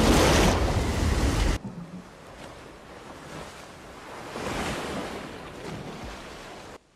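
A loud rush of storm wind and sea spray for the first second and a half. It cuts suddenly to much quieter small waves washing onto a sandy beach, which swell briefly around the middle, and the sound stops abruptly near the end.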